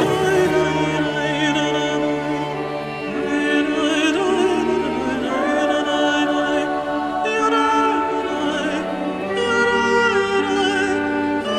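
Background music: a slow sung melody with vibrato over sustained chords.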